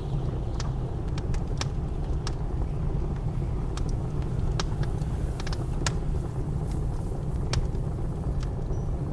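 Wood fire crackling with sharp, irregular pops over a steady low rumble of blizzard wind.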